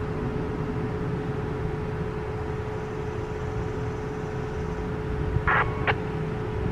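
Steady background rumble with a faint constant hum, and two short sharp sounds near the end.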